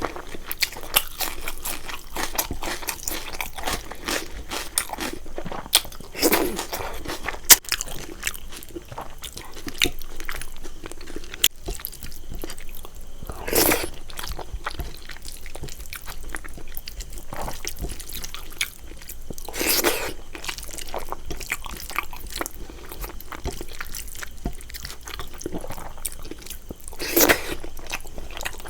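Close-miked eating of a rice-and-curry meal: steady chewing with many small wet clicks and smacks. Four louder bursts stand out, spaced several seconds apart.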